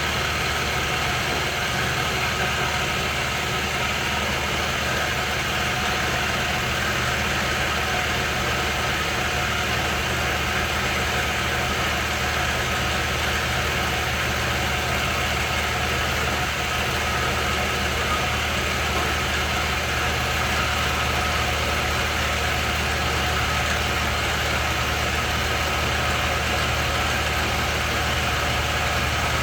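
Grizzly G0519 milling machine running steadily with its milling cutter taking a light 0.2 mm pass across the spacer: an even mechanical hum with several steady tones that does not change.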